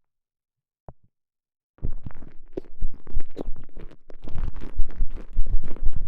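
A microphone inside a TENGA Egg's stretchy elastomer sleeve picks up close, bass-heavy rubbery rubbing and squishing as the sleeve is worked around it. After a near-silent start with one brief tick about a second in, the squishing runs on continuously from about two seconds.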